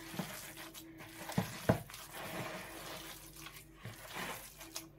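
Hand squishing and kneading a wet mixture of grated vegetables, cornflour and maida in a plastic bowl, binding it for vegetable Manchurian balls: a soft, moist rustling squelch, with two short knocks about a second and a half in.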